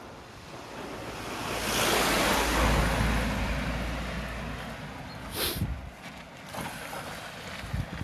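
A large delivery van driving past: its engine and tyre noise swell to a peak about two to three seconds in, then fade as it drives away. A few footsteps follow near the end.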